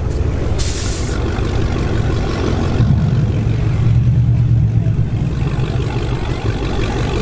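Vehicle engines running with a steady low rumble, a short hiss about a second in, and a louder low engine note from about three to five seconds in.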